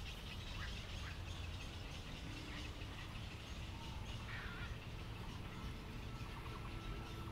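Birds calling in a few short chirps over a steady low background rumble; a thin steady tone comes in about two-thirds of the way through.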